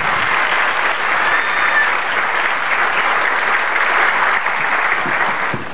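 Studio audience applauding steadily, a dense even clapping that drops off suddenly at the very end.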